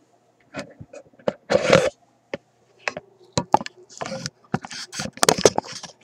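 Handling noise on a workbench: an irregular run of clicks, knocks and short scrapes and rustles. The two longest scrapes come about a second and a half in and again near the end.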